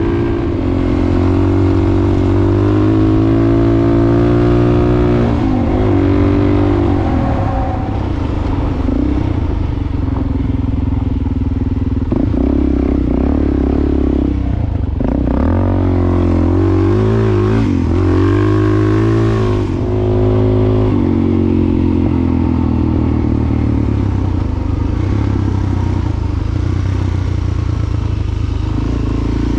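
400 cc single-cylinder dual-sport motorcycle engine under way, heard from the bike itself. Its pitch rises and falls repeatedly as the rider works the throttle and gears, most of all between about 5 and 7 seconds and from about 12 to 20 seconds in.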